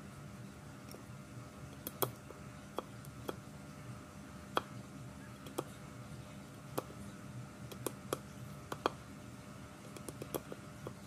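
Scattered light clicks and taps, a dozen or so at irregular intervals, over a low steady hum.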